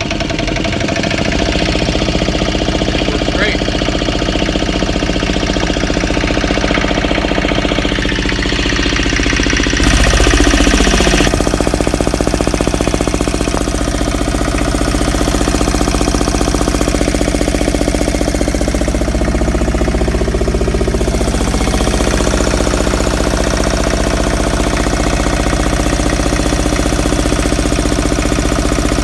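Onan 3 kW marine diesel generator (MDJA) running steadily just after starting. About ten seconds in the sound gets louder and fuller, with a brief falling sweep.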